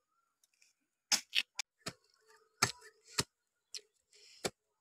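A machete chopping at the base of bamboo shoots: a run of about seven or eight sharp, short chops at uneven intervals, starting about a second in, with dry leaf litter rustling near the end.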